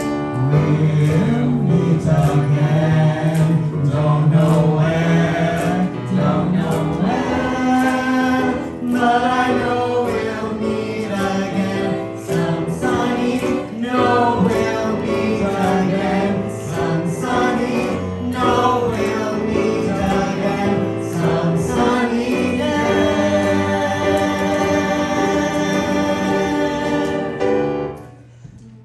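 Several voices singing a song together into handheld microphones, amplified over the stage sound system. The singing stops abruptly about a second before the end.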